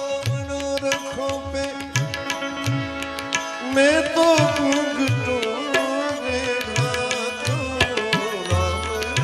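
Instrumental interlude of a devotional bhajan. Tabla plays a steady rhythm of low strokes and sharp clicks under held melodic tones, and a wavering melody line comes in about four seconds in.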